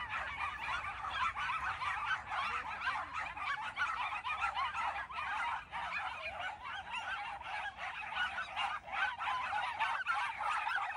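A large pack of Shetland sheepdogs barking nonstop, many high-pitched barks overlapping into one continuous din.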